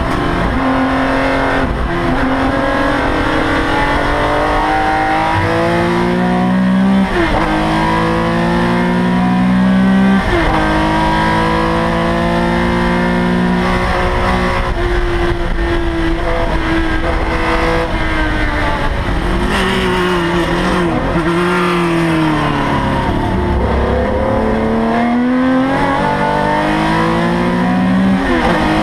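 Porsche 911ST's air-cooled flat-six heard from inside the cockpit at full racing effort. It revs hard and climbs through several upshifts in the first ten seconds, then holds steady at high revs. Around twenty seconds in come several quick downshifts with throttle blips, and then it accelerates hard again.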